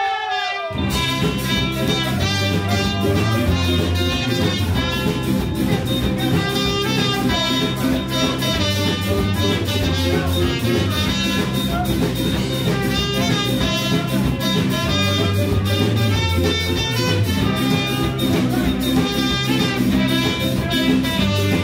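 Ska band playing live: trumpet and saxophone over electric guitar and drum kit in a steady ska rhythm, the full band coming in under a second in.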